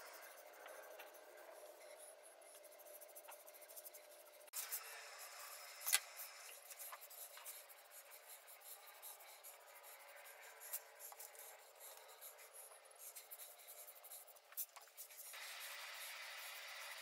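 Foam brush wiping spar urethane onto the wooden staves of a round Douglas fir planter: faint, soft rubbing strokes with a few light clicks and one sharper tap about six seconds in.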